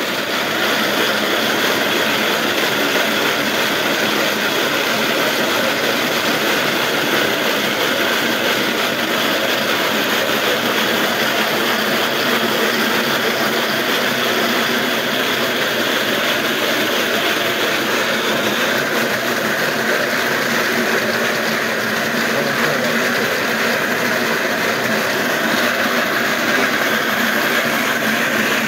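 Wooden slat mill turning steadily under a running dog: continuous mechanical noise from the slats and rollers. A higher hiss in it stops about two-thirds of the way through.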